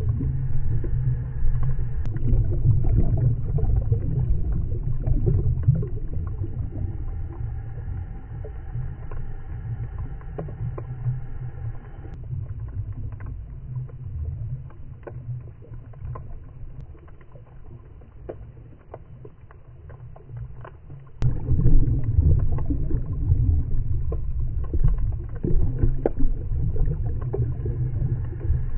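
Underwater sound picked up through a diving camera's housing: a low muffled rumble of water with scattered clicks and crackles. It turns quieter about twelve seconds in and comes back suddenly about twenty-one seconds in.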